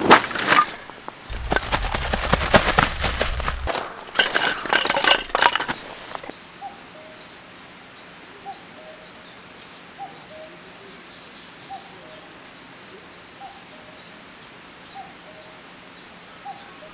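A canvas bag being rummaged and a bag pulled out of it, rustling and clattering for about six seconds. Then it is quiet apart from a bird repeating a short call about every second and a half.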